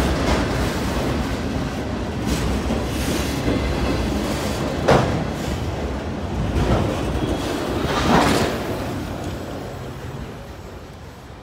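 Freight train of multilevel autorack cars rolling past, its wheels rumbling and clacking on the rails, with two brief louder noises about five and eight seconds in. The sound fades near the end as the last car goes by.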